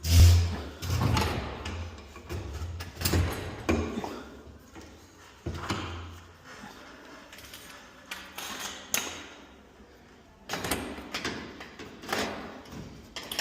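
Metal knocks and clatter of garage door hardware and tools being handled during torsion spring replacement, with a low hum for about the first six seconds.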